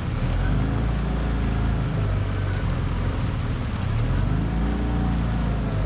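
Small boat's outboard motor running underway. Its pitch dips and rises a couple of times as the speed changes.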